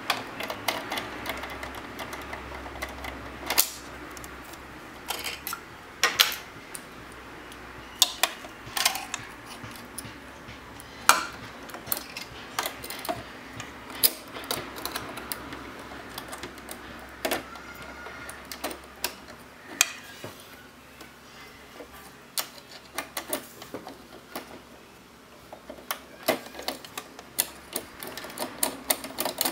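Irregular clicks and taps of small metal and plastic parts on a Janome Memory Craft 5200 sewing machine as the presser foot is unclipped and a walking foot is fitted onto the presser bar.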